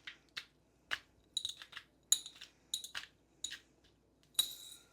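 Pepper grinder being worked over the fish: a run of short, sharp clicks about two a second, each with a faint metallic ring, and a longer, brighter clink near the end.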